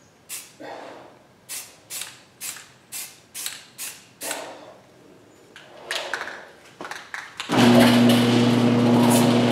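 Short hisses of an aerosol spray-paint can of gloss enamel, about two strokes a second, for the first few seconds. About seven and a half seconds in, a garage door opener starts up with a loud steady hum, the loudest sound here.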